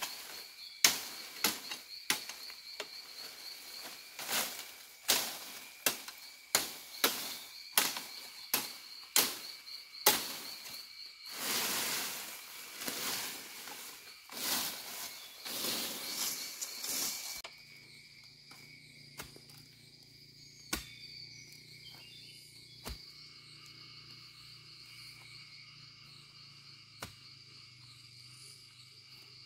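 Dry bamboo poles knocking and cracking as they are pulled and broken, a sharp crack about every half second to a second, with bamboo leaves rustling. Steady high insect chirring runs throughout. After about 17 seconds only the insects and a low steady hum remain, with an occasional click.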